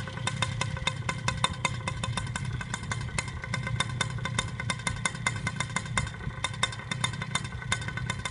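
Paramotor engine idling with a steady low rumble, with rapid, irregular clicking and clatter over it.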